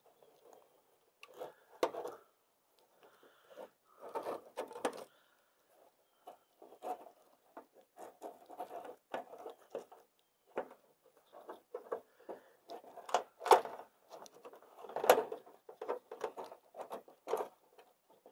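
Micromesh gutter guard, its metal mesh and aluminum frame, being worked by hand under asphalt roof shingles and onto the gutter: irregular rustling, scraping and light clicking of metal against shingle grit and gutter, with two sharper clicks in the last third.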